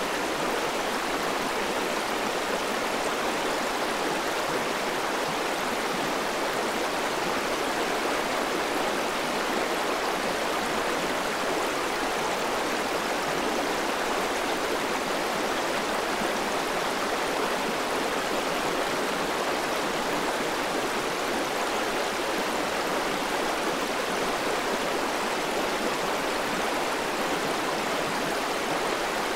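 Shallow mountain stream running over stones and gravel: a steady, unbroken rush of water.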